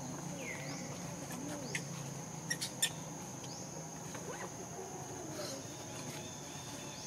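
Steady high-pitched insect drone, cicadas or crickets, with scattered short rising chirps and a few sharp clicks about two and a half seconds in.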